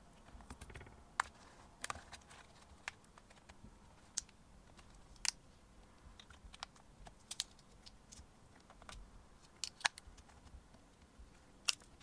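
Plastic pry tools levering the bezel off a Kindle e-reader: irregular sharp plastic clicks and snaps as the bezel is worked loose from the frame, the loudest about a second in, about five seconds in and near ten seconds.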